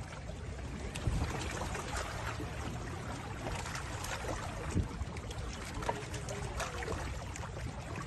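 Small waves lapping and splashing irregularly on a freshwater lake, over a low steady rumble.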